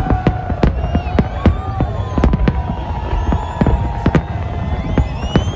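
Fireworks display going off: many sharp bangs in quick, irregular succession, several a second, over a continuous low rumble of distant bursts.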